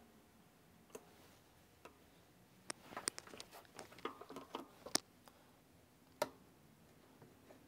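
Faint clicks and light knocks of a La-Z-Boy recliner's metal mechanism parts being handled and refitted by hand. A busy cluster of small clicks comes from about three to five seconds in, and a single sharper click a little after six seconds.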